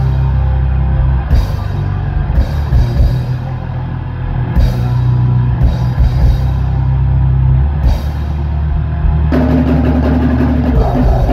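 Live metal band playing loud: heavy bass and distorted guitars over drums, with cymbal crashes every second or two. About nine seconds in, a new, denser riff comes in.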